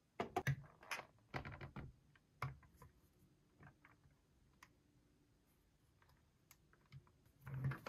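Hard plastic clicks and clatter from a Wall-E remote-control toy robot being handled, its head and eye pieces moved by hand. There are dense clusters of clicks in the first two seconds, scattered single ticks after that, and another short run of clicks near the end.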